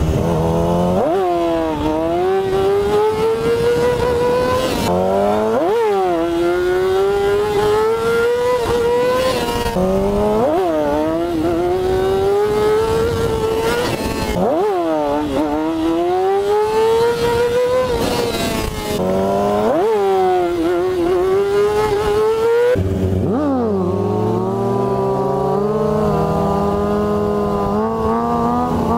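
Sport motorcycle engine heard on board while riding hard. The revs climb for a few seconds, then dip and jump sharply at each gear change, about five times. After about 23 seconds it settles into lower, steadier revs.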